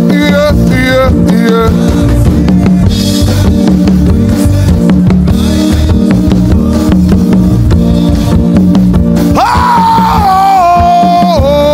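Live worship music: a band with a drum kit playing a steady groove. A singer's voice carries drawn-out lines for the first couple of seconds, and comes back loud on long held, wavering notes from about nine seconds in.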